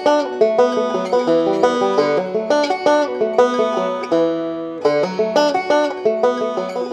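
Background music: a fast, plucked banjo tune in a bluegrass style.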